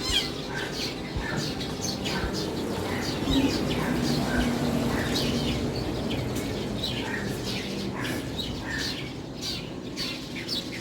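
Many small birds chirping: a scatter of short, quickly falling chirps repeating throughout, over a steady low background hum.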